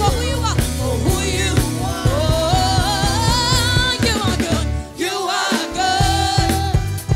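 Gospel worship song: singing with a wavering vibrato over a band with bass and drums. The bass and drums drop out for about a second near the middle, then come back in.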